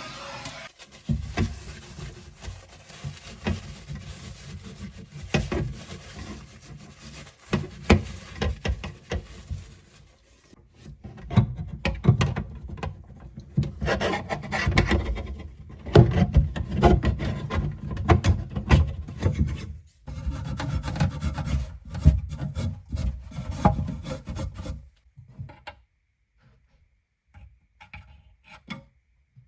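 Irregular rubbing and scraping of hand work on copper pipework under a sink, in uneven bursts, dying away about 25 seconds in to a few light knocks.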